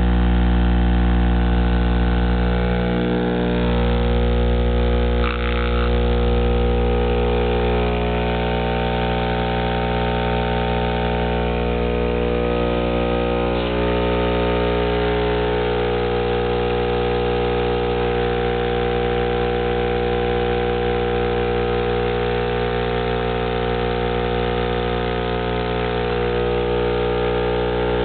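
A 12-inch RD Audio Heavyweight V.2 subwoofer wired straight into a wall socket is driven by mains AC and gives a loud, steady low hum. It is being overdriven in a burn-out test to see how long it lasts.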